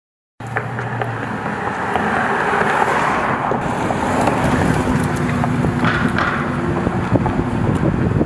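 Dodge Charger SRT Hellcat Redeye's supercharged 6.2-litre V8 running as the car drives, cutting in abruptly about half a second in.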